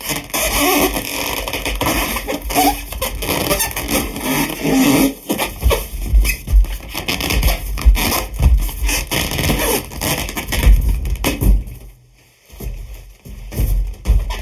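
An inflated sheet-latex balloon being squeezed and rubbed by hand, squeaking and rasping almost without pause, with low handling thumps. It goes much quieter about twelve seconds in, with a few short squeaks after.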